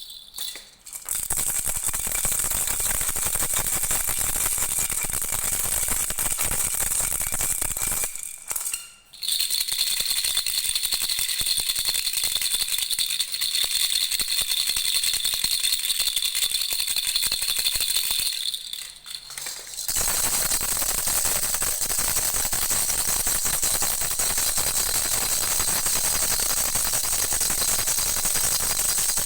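Baby rattles with small bells (jhunjhuna) shaken in a fast, continuous jingling rattle. It breaks off briefly three times: about a second in, around 9 seconds and around 19 seconds. After the last break it goes on without its high ringing tone.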